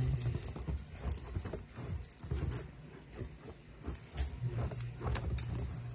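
Metallic jingling in repeated shakes, on and off, like a small bell being jostled, with a low steady hum coming in about four and a half seconds in.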